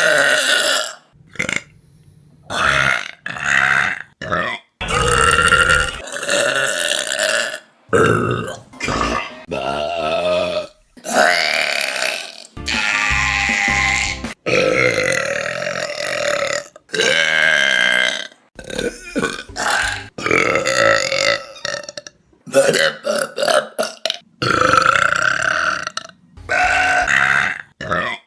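A rapid series of loud human burps from different people, one after another with short gaps, some brief and some drawn out for a couple of seconds.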